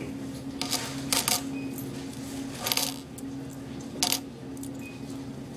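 Pennies clinking together in the hands as they are counted, in short bursts about a second or more apart. A steady low hum runs underneath.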